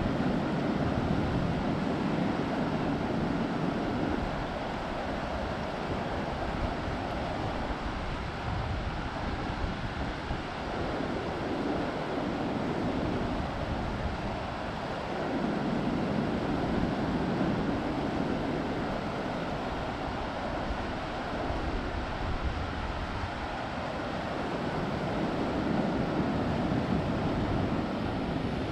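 Truckee River rushing: a steady wash of flowing water that swells and eases every several seconds, with an uneven low rumble of wind on the microphone underneath.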